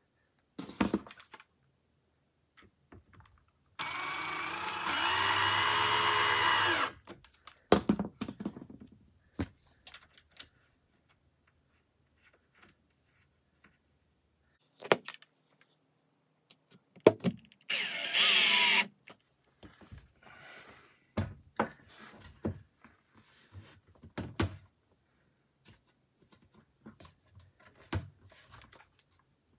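A power drill runs for about three seconds, its whine rising as it speeds up, and again for about a second later on. Between the runs come scattered clicks and knocks of metal hinge hardware being handled.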